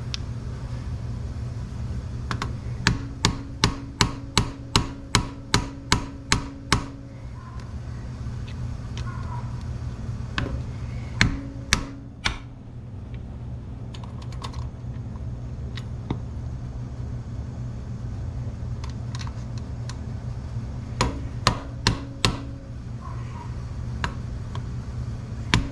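Quick runs of sharp metal taps, about three a second, on the ATV drive chain's master link as it is worked off, each with a short ring, over a steady low hum.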